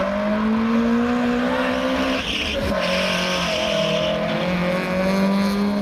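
Hatchback car's engine held at high revs while its tyres spin and squeal, the engine note dropping in steps as the car pulls away.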